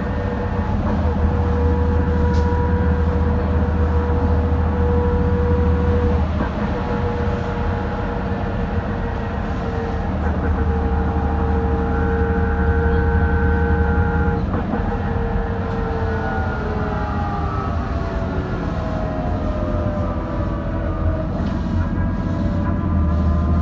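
BMC Procity city bus cruising at high speed in sixth gear, heard from inside the passenger cabin: a steady gear whine from the differential and ZF Ecomat automatic gearbox over engine and road rumble. About two-thirds of the way through, the whine falls in pitch, then rises again near the end.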